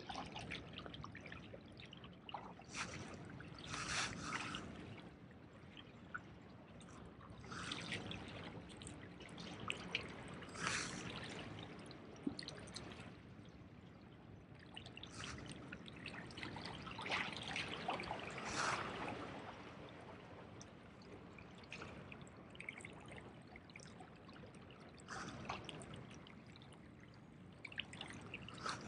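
Small waves lapping and trickling among the rocks at the water's edge. The sound swells and fades in irregular surges every few seconds.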